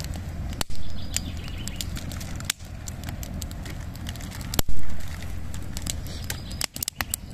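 Wood campfire of split logs burning, crackling with scattered sharp pops over a steady low rumble, with two louder bursts about a second in and just past halfway.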